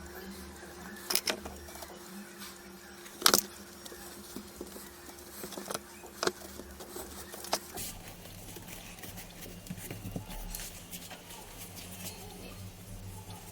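Scattered light knocks and clicks of things being handled on a work surface, the loudest about three seconds in, over a steady low hum that changes about eight seconds in.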